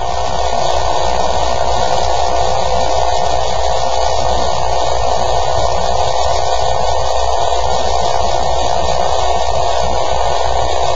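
Steady hum with hiss, unchanging in level and pitch throughout.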